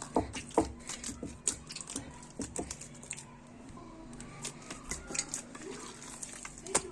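Soft, wet yeast dough for sfenj being beaten and kneaded by hand in a bowl, with irregular sticky slaps several times a second.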